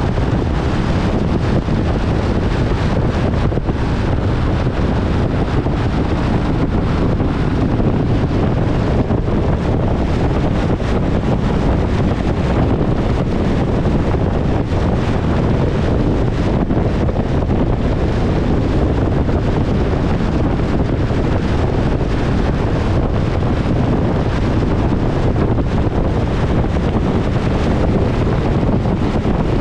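Steady wind noise buffeting the microphone, a loud low rumble.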